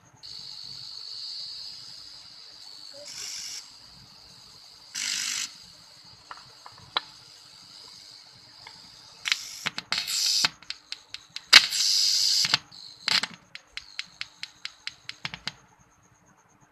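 Small speaker on a PAM8403 amplifier board hissing, with a faint steady high whine and a low hum, broken by short bursts of noise and, near the end, a quick run of sharp crackling clicks.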